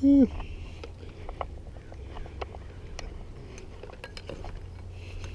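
A brief grunt at the very start, then scattered light clicks and metallic clinks of handling noise as gear is moved around aluminium bleachers, over a low steady rumble.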